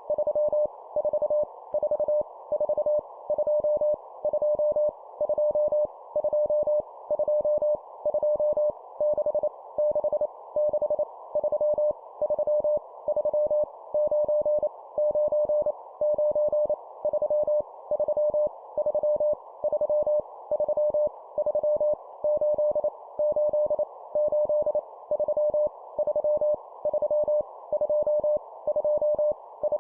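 Morse code (CW) practice tone on a single steady pitch, keyed at 25 words per minute and sending random numbers, each repeated three times. A steady band of hiss runs under the dits and dahs.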